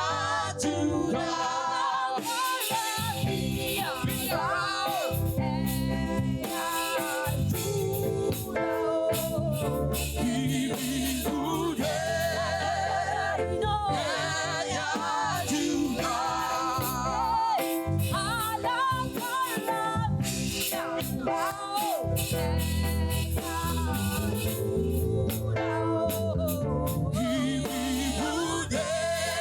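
Church choir singing a gospel praise song over live band accompaniment, with a steady bass line and a regular beat. The sung melody wavers and slides in pitch throughout.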